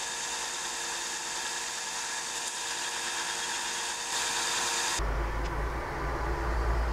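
Small wooden ring blank held against a running bench sander's abrasive face: a steady grinding hiss over the machine's hum. About five seconds in it cuts off abruptly and gives way to a low rumble.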